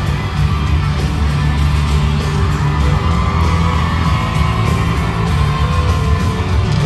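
Live pop music at a stadium concert, played loud over the sound system and heard from within the crowd, heavy in the bass.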